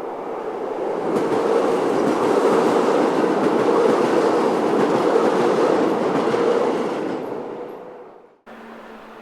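Keihan Keishin Line train passing, its wheels running on the rails: the sound builds over a second or two, holds for several seconds, then fades and cuts off abruptly about eight seconds in.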